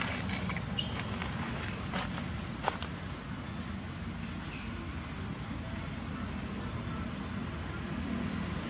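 Steady, high-pitched chorus of insects buzzing without a break, over a low hum, with a couple of faint clicks about two and three seconds in.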